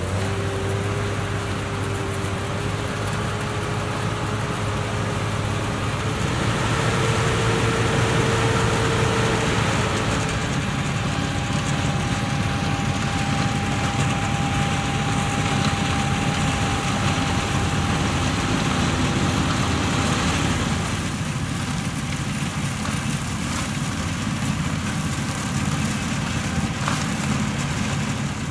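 New Holland tractors' diesel engines running steadily at work in a sugar-beet harvest. A faint high whine holds above the engine noise for several seconds in the middle.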